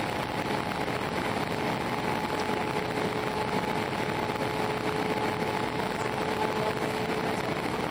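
Steady cabin noise inside an Airbus A319 on the ground: an even rush of air and engine noise with two faint steady whining tones.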